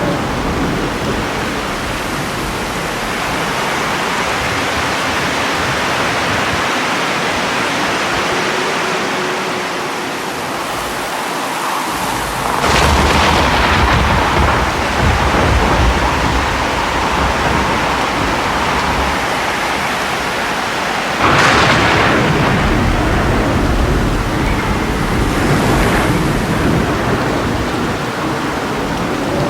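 Thunderstorm: steady heavy rain with thunder. A loud clap about 13 seconds in rumbles on for several seconds, another sharp crack follows about 21 seconds in, and a fainter one comes near 26 seconds.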